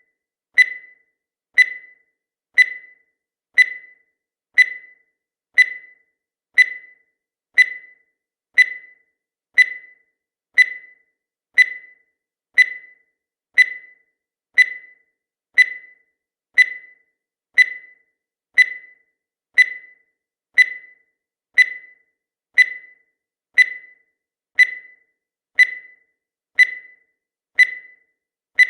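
Countdown timer sound effect: a short, high-pitched tick-beep once every second, each one dying away quickly.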